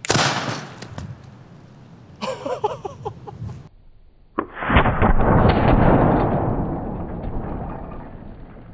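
A hairspray-fuelled PVC potato cannon fires with a sharp bang right at the start that dies away within about a second. From about four and a half seconds a long, deep boom swells and fades slowly over several seconds as a slow-motion replay of the watermelon hit plays.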